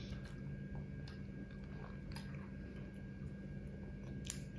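Quiet room with a steady low hum and a few faint, scattered clicks.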